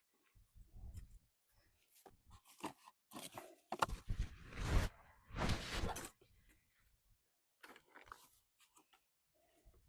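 Irregular crunching and tearing sounds, loudest and densest about three to six seconds in, with a few low thuds near the start.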